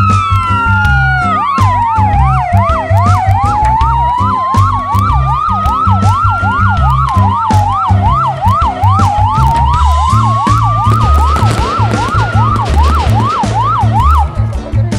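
Police car sirens sounding together. One is a slow wail rising and falling every five to six seconds; the other is a fast yelp of about three sweeps a second. The wail stops a few seconds before the end, and the yelp about a second before it.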